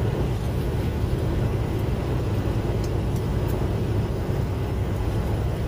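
Semi truck's diesel engine idling, heard inside the cab as a steady low rumble.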